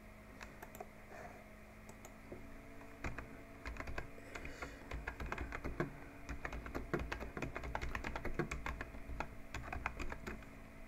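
Typing on a computer keyboard: a few scattered keystrokes at first, then a quick run of soft key clicks from about three seconds in.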